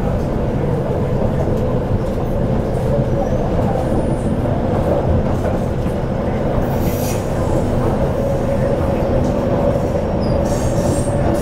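Motor car of an MTR CNR Changchun 'C-train' EMU with IGBT-VVVF traction, heard from inside the car while running: a steady rumble of wheels and running gear, with one tone from the traction equipment rising slowly in pitch. A brief high squeal comes about seven seconds in.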